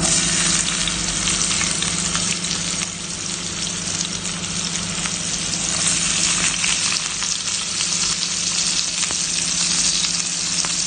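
Sliced onions sizzling in hot oil in a frying pan, the sizzle breaking out suddenly as they hit the oil and then running on steadily.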